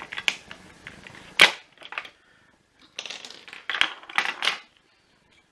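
Plastic roller wheels of a Vax Blade vacuum floor head being popped off the plastic chassis by hand: sharp plastic snaps and clicks. One loud crack comes about a second and a half in, then a run of clicks and rattles between about three and four and a half seconds.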